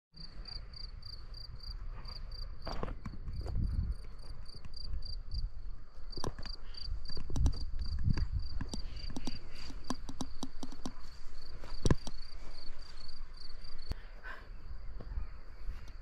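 Field cricket chirping in an even, high-pitched pulse of about three chirps a second, with scattered thuds and scuffs of footsteps on a grassy dirt path and low rumbling on the microphone.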